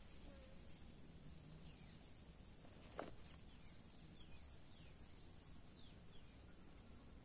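Faint natural ambience: a steady high insect drone, with a run of quick, falling bird chirps in the second half and one short knock about three seconds in.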